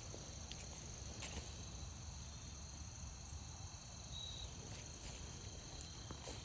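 Crickets trilling steadily in several overlapping high tones, with a few faint clicks and two brief higher chirps.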